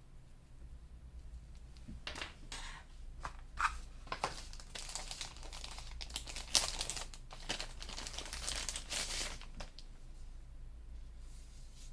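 Crinkling and rustling of something being handled: a run of irregular crackles and scrapes from about two seconds in until about ten seconds in, over a steady low hum.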